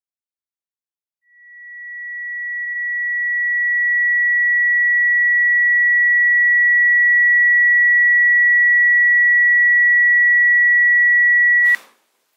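A single steady high-pitched electronic tone, a pure ringing pitch that fades in over a couple of seconds and then holds. It cuts off suddenly with a click near the end.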